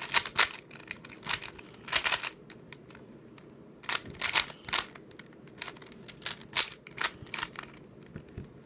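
Plastic layers of a YJ Sulong 3x3 speedcube clacking as they are turned fast, in quick bursts of several clicks with short pauses between them.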